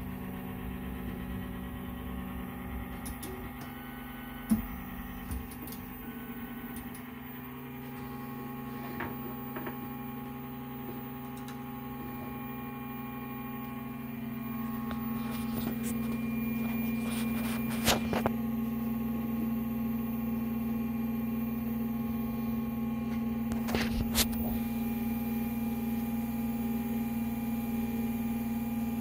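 MPCNC router's stepper motors humming and whining steadily during a Marlin auto-home, growing louder about halfway through and staying at that level. A few sharp clicks stand out, as the axes home against their endstops and the Z probe tip touches the touch plate.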